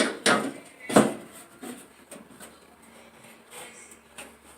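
Hard knocks and clatters of dryer parts and tools being handled during disassembly: a loud knock at the start and another about a second in, then a few softer clicks.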